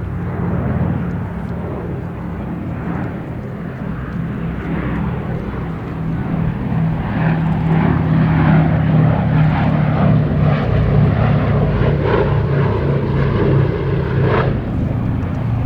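Boeing B-17G Flying Fortress's four Wright R-1820 Cyclone radial engines droning with propellers, growing louder about halfway through as the bomber comes closer.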